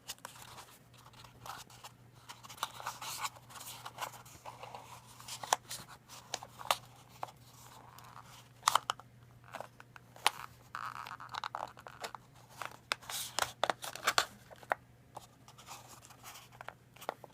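A small cardboard box and its lid being handled and fitted together: scraping, crinkling and sharp taps and clicks, irregular and spread across the whole stretch, over a steady low hum.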